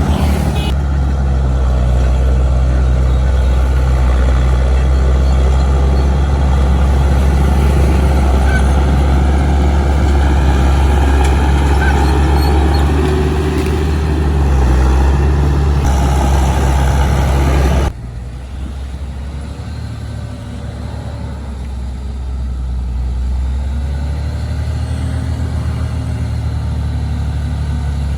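Heavy diesel engine of earthmoving machinery running steadily. It drops suddenly to a quieter engine sound about 18 seconds in.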